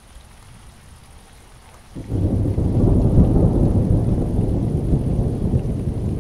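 Steady rain falling. About two seconds in, a deep rumble of thunder comes in suddenly and goes on rolling, far louder than the rain.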